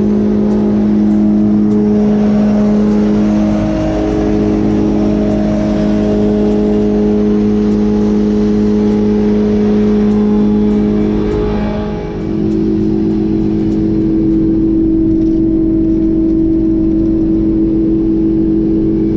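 Bulk feed truck unloading: the engine running fast to drive the hydraulic unloading auger, a loud steady drone with a humming tone that dips briefly about twelve seconds in.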